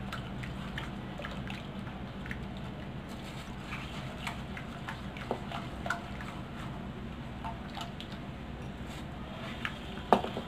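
Silicone spatula stirring hot milk and cocoa mixture in a nonstick pan: soft wet squishing and light scraping with scattered small ticks, over a steady low hum.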